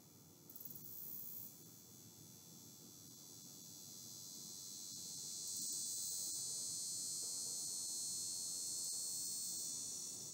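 A high-pitched buzzing that swells over several seconds, holds steady, and cuts off suddenly near the end, over a low background rumble.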